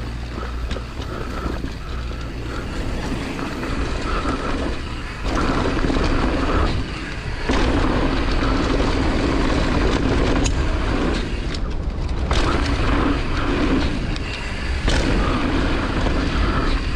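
Wind rushing over an action camera as a downhill mountain bike rides a dirt jump trail, with tyre and bike rattle. The noise thins out briefly several times.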